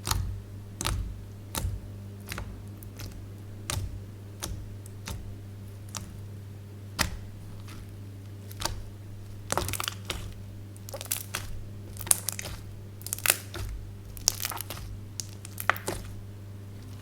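Slime being squeezed and kneaded by hand, giving irregular sharp crackles and pops that come thicker in the second half, over a steady low hum.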